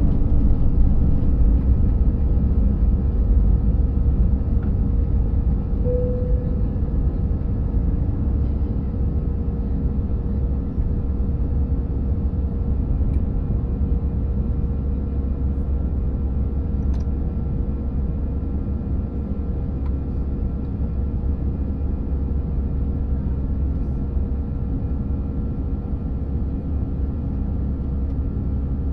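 Airbus A319 jet engines heard from inside the cabin at takeoff power through the takeoff and initial climb: a steady low rumble with steady engine tones on top, slowly easing in loudness.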